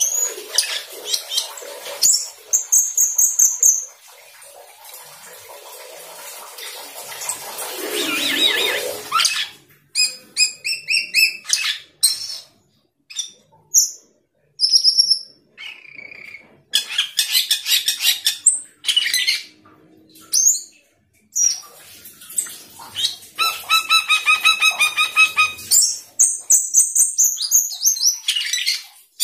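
Asian glossy starling singing a long, varied song of sharp high whistles, fast rattling trills and harsh chatter, broken by a few short pauses. It is in full song, packed with varied call phrases.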